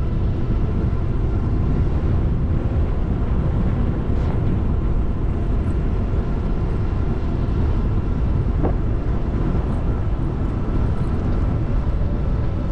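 Steady wind rush on the microphone mixed with tyre and drivetrain noise from a fat-tire e-bike riding along a trail, with a faint steady whine underneath.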